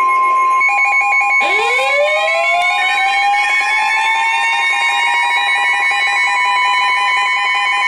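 Emergency alert tones sounding together. A steady high weather-radio warning alarm tone runs under rapid pulsing electronic beeps. About a second and a half in, a siren winds up from low to high pitch and then holds steady.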